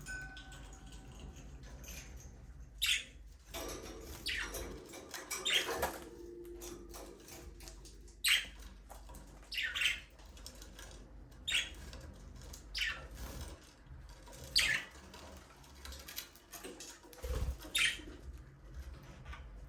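Budgerigars giving short, sharp chirps every second or two, many sliding downward in pitch, with wing flutters among them.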